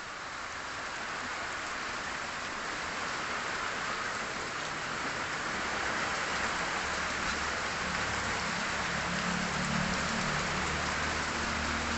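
Steady rain hissing on surfaces, slowly getting louder, with a low steady engine hum coming in about halfway through.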